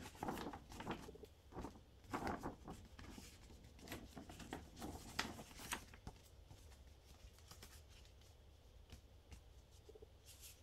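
Paper rustling and crinkling as a large folded paper poster is handled and put aside: a run of soft, irregular rustles and light taps over the first six seconds. A brief rustle of a folded paper insert being picked up near the end.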